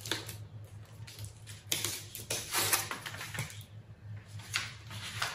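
Pleated gold foil and copy paper rustling and crinkling in irregular bursts as it is handled and pressed flat by hand.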